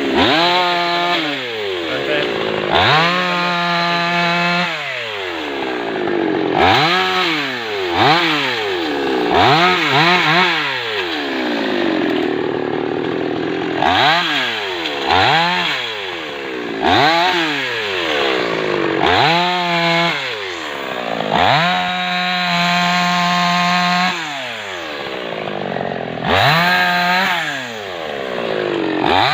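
Petrol chainsaw cutting orange tree wood, its engine revved up and dropped back over and over, every second or two, with a few longer stretches held at full throttle through the cut.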